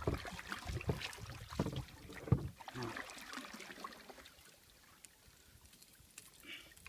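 Knocks and clicks of gear handled in an aluminium-free wooden-trimmed canoe as pliers work a hook out of a smallmouth bass, several sharp knocks in the first couple of seconds, the loudest about two seconds in, then quieter.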